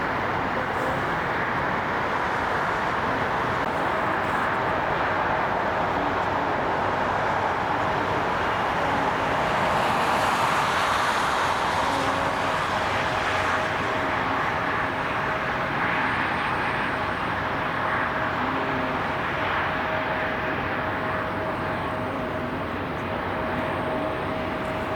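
Jet airliner engines: a steady rush of noise with a thin steady whine, swelling a little about ten seconds in.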